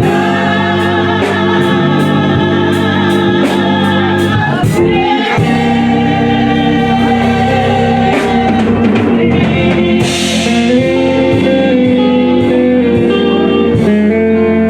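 Gospel music with singing, instruments and a steady drum beat.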